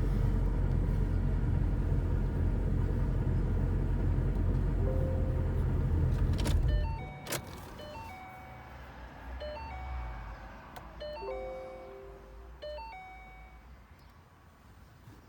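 A 2012 Ford Boss 302 Mustang's 5.0-litre V8 running steadily, then shut off suddenly about seven seconds in. A click follows, then a short run of electronic chime tones at several pitches.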